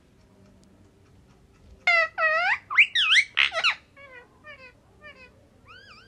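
Indian ringneck parakeet calls: after a quiet start, a run of loud squawks that sweep up and down in pitch for about two seconds, then four short fainter chirps and one more call near the end.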